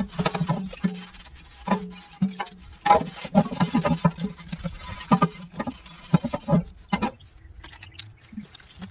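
A pad scrubbing the lid of a cast iron Dutch oven in soapy water, in short irregular strokes, with water dripping and splashing. Near the end the lid is set back on the pot with a knock.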